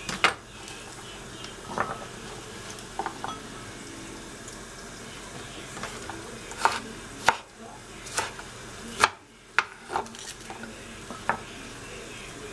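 Kitchen work: about a dozen sharp, irregular knocks and clicks of a knife and utensils, over the steady sizzle of vegetables frying in a pan.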